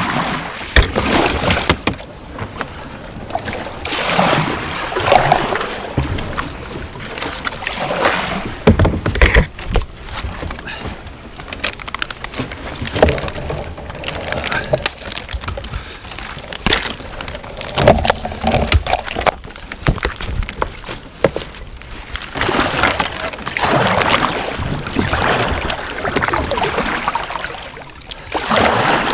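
Kayak paddling: the paddle blades splash and slosh in river water, in uneven surges every second or few.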